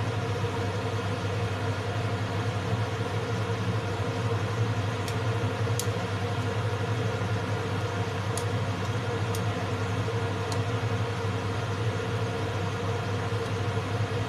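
Steady low mechanical hum, with a few faint clicks of a metal spoon against the pot as the soup is stirred.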